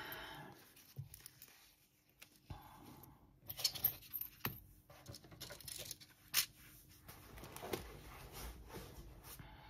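Sewing notions being handled and laid out on fabric: zippers sliding and plastic and card needle packets being set down. Soft rustling, with a few sharp clicks in the middle.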